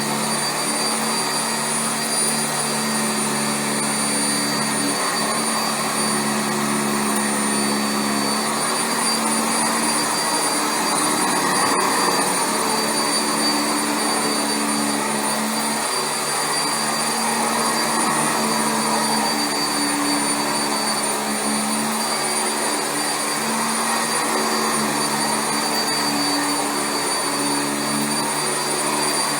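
Sanitaire SC679J commercial upright vacuum cleaner running steadily over carpet, with a steady high whine.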